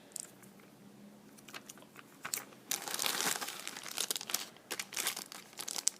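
Packaging crinkling and crackling as it is handled: faint for the first two seconds, then a dense run of crackles.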